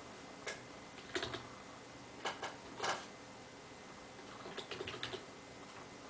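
Keystrokes on a computer keyboard: a few separate key clicks in the first three seconds, then a quick run of about half a dozen keys a little after the middle.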